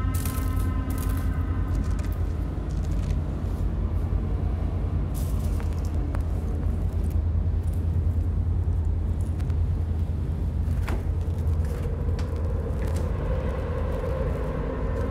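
A steady deep rumbling drone with scattered light clicks and taps over it. Pitched tones of an eerie music score fade out at the start and swell back in about twelve seconds in.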